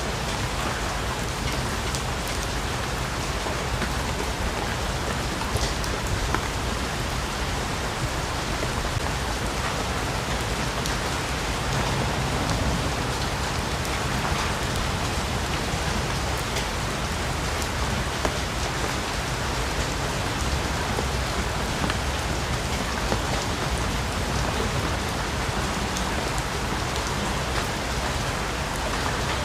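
Steady, heavy rainforest rain falling without a break, with a few single drops standing out as sharp ticks above the constant hiss.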